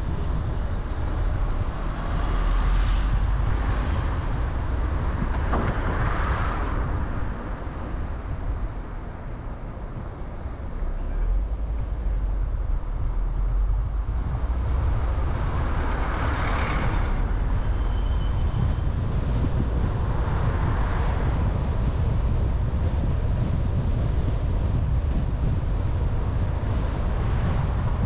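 Car driving through town traffic: a steady low rumble of road and wind noise, with several louder swells as vehicles pass, and a briefly quieter stretch about a third of the way in.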